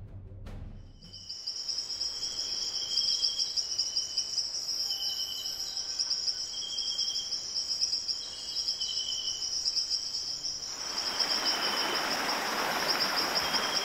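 Insects trilling steadily and high, with a lower chirping call repeating about once a second. About eleven seconds in, the rush of a fast stream running over rocks joins them.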